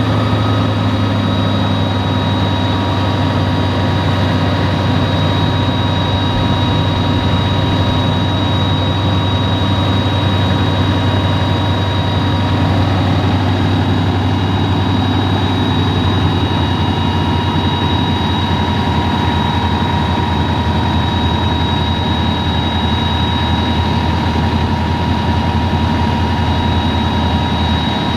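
Kubota M7-172 tractor's diesel engine running steadily under load with a pull-type New Holland FP230 forage harvester chopping corn: a constant heavy drone with steady high-pitched whines on top.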